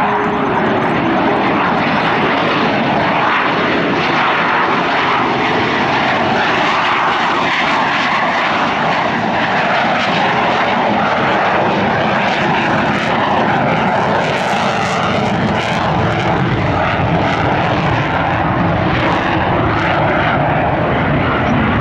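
Fixed-wing aircraft engine running steadily, loud and continuous.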